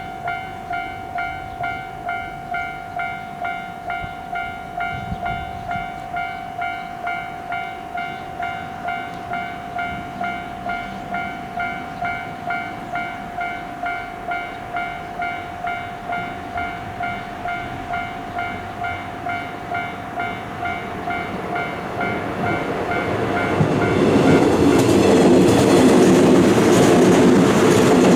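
Japanese level-crossing warning bell ringing its repeated electronic "kan-kan" about twice a second. About three quarters of the way in, a train approaches and passes over the crossing, its wheels clattering on the rails and drowning out the bell.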